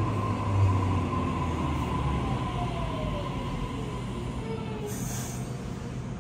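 Train running along the line with a steady low rumble and a whine that falls in pitch over a few seconds. A short hiss comes about five seconds in.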